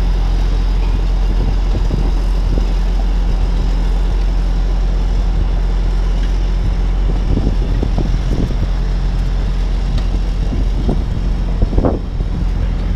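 Diesel engine running steadily at a low, even pitch, with a few knocks about halfway through and again near the end.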